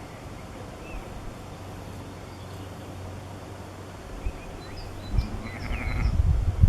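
Faint outdoor background with a few short, high chirps, and a low rumble of wind on the microphone building near the end.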